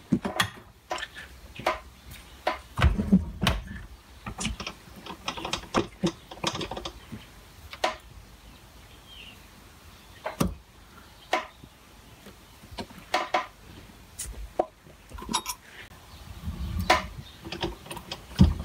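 Irregular metal-on-metal clinks and taps around a metal lathe's tool post as the threading tool is adjusted square to the work with a thread gauge, with a few duller knocks about three seconds in and near the end.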